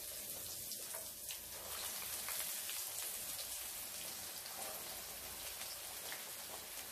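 Fish pieces deep-frying in hot oil in a pan: a steady sizzle with fine crackling as more pieces are lowered into the oil.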